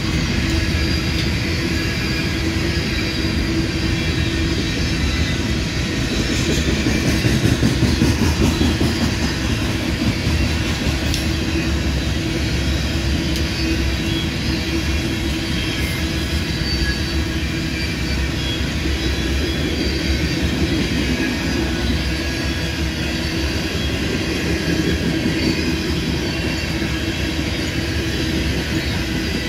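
Hopper cars of a BNSF freight train rolling past, a steady rumble of steel wheels on the rails, briefly louder about seven seconds in.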